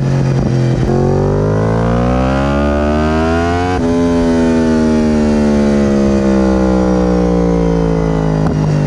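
Yamaha R1M's crossplane inline-four running through an Akrapovic exhaust while riding. The revs climb for about three seconds, drop away suddenly a little before halfway, then sink slowly as the bike eases off. A few sharp pops come near the start and near the end.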